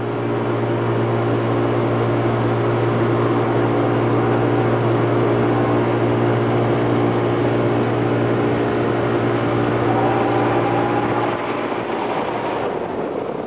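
Boat engine running steadily under way, a low, even drone with a strong steady tone. It becomes quieter about eleven seconds in.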